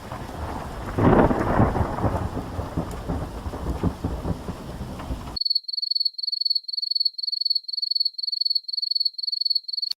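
Thunderstorm sound effect: a steady rain hiss with a rumble of thunder swelling about a second in. It cuts off abruptly after about five seconds and gives way to a high, evenly pulsed chirping, about two to three chirps a second, like a cricket.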